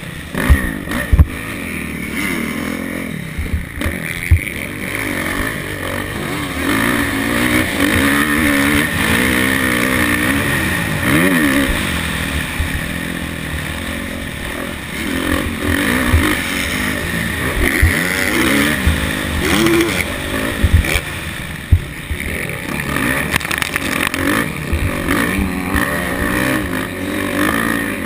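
Kawasaki motocross bike engine revving up and falling back again and again as the rider accelerates out of turns and shuts off into them, with sharp knocks from the bike hitting ruts and bumps.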